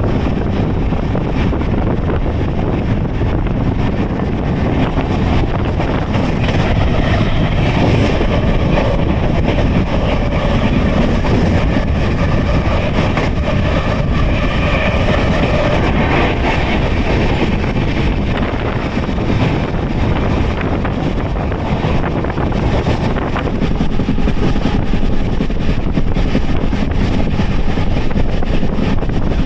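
Rumble and rail clatter of a passenger train running on the track, heard from aboard, loud and steady throughout.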